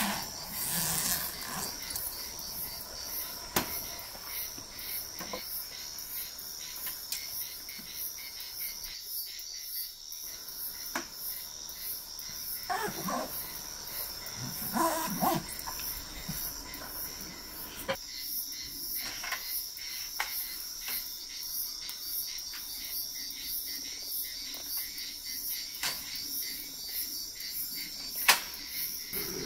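Crickets chirping steadily in the night background, with scattered clicks and knocks of camping gear being handled on a folding table and a sharp knock near the end. Two short squeaky sounds come around the middle.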